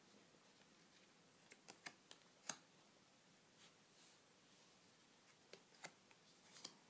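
Playing cards being turned face up by hand: a few light clicks and snaps of card on card, a cluster about two seconds in and another near the end, over near silence.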